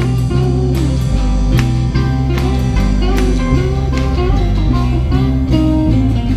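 Live gospel band music: strummed acoustic guitar and electric guitar over steady low bass notes, with a lead line whose notes slide up and down.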